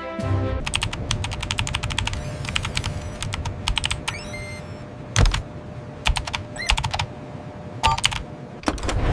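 Rapid runs of sharp clicks for about three seconds, then a few scattered single clicks, over a faint steady hum.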